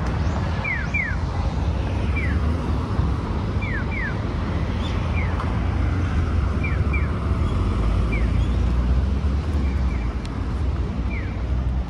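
Steady low rumble of city vehicle traffic with wind on the microphone, and a small bird repeating short falling chirps, often two in quick succession, about once a second.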